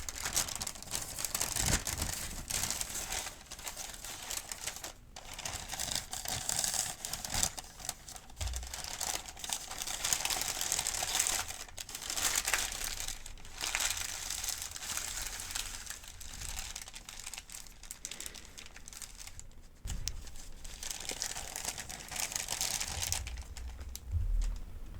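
Paper crinkling and rustling as a folded pharmacy medication guide is handled, with a couple of brief pauses.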